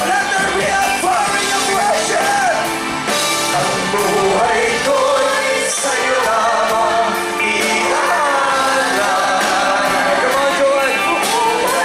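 A live worship band and a group of singers perform a Tagalog worship song: several voices singing together over drums, electric guitars and keyboard, with cymbal crashes now and then.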